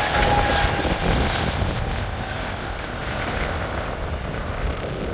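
Twin-engine Airbus A320-family jet airliner taking off at full thrust: a steady jet roar with a whine that falls slightly in pitch and fades out about two seconds in, the roar slowly dropping as the aircraft climbs away.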